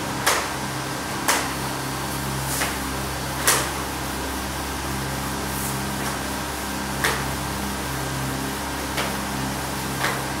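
Whiteboard being wiped clean with a duster: several short, sharp knocks and scrapes of the duster against the board, the loudest about three and a half seconds in, over a steady low hum.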